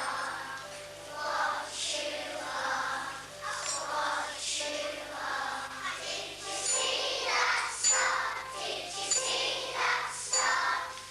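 Children's choir singing a song with musical accompaniment, with small bells tinkling.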